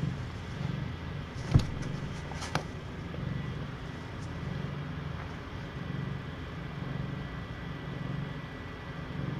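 Mother cat purring steadily while nursing her kittens, a low pulsing that swells with each breath. Two soft knocks come about one and a half and two and a half seconds in.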